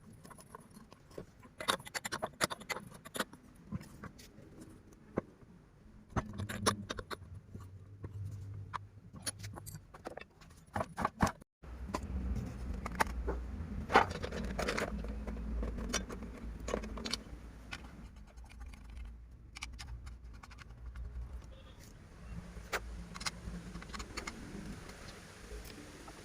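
Irregular metallic clicks, clinks and light scrapes of hand tools and small metal parts being handled while a Stihl 070 chainsaw is worked on by hand, with the engine not running.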